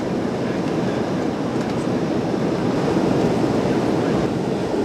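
Steady rushing roar inside an airliner cabin in flight, from the jet engines and the air streaming past the fuselage, heard from a window seat soon after takeoff.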